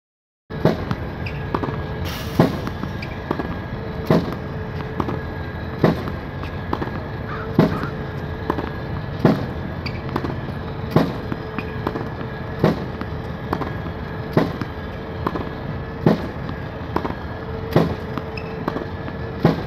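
Lobster Elite 2 tennis ball machine firing balls at its fastest feed rate: a sharp pop about every 1.7 seconds over the steady whir of its spinning launch wheels. Fainter hits of racket volleys and ball bounces fall between the pops.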